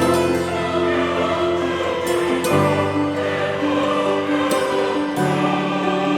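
Background music: slow, held chords that shift about every two and a half seconds.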